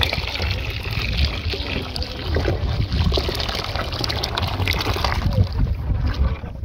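A thick white liquid pouring in a steady stream from a jug into a pot of steaming hot water, with a splashing, trickling sound.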